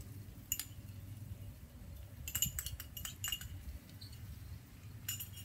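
Metal utensil clinking against a cast iron pan while stirring: one clink about half a second in, a quick run of clinks around the middle, and a couple more near the end.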